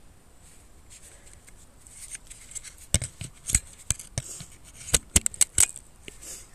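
Hardtail mountain bike rolling over a loose, stony dirt track. After a quiet first two seconds there are irregular sharp clicks and knocks from the tyres on loose stones and the bike rattling over bumps.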